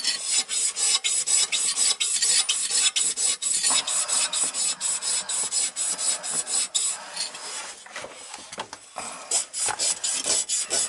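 A copper water pipe being scoured clean by hand: quick rasping strokes, about three or four a second, easing off for a moment near the end before starting again. This is the pipe being cleaned before it is cut for a new valve.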